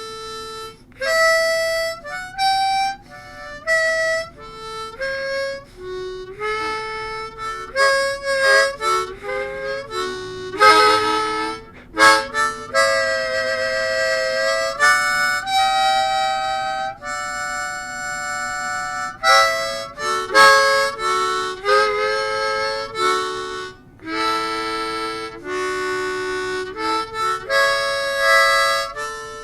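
Harmonica played as a solo blues, with short single notes and held chords that bend between pitches.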